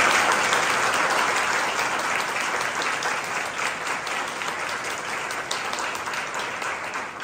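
Audience applauding, a steady round of many hands clapping that is loudest at the start and slowly dies away near the end.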